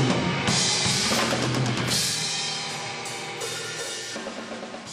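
Live rock band playing, with drum kit and electric guitars, the music fading out gradually.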